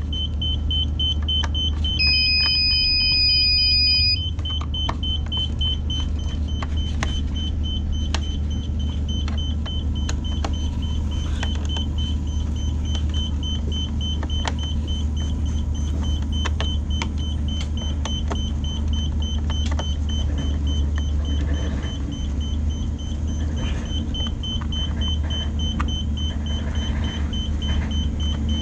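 Steady low machinery hum with a constant high-pitched electronic whine over it. An electronic beep sounds once about two seconds in and lasts about two seconds, and faint clicks come and go.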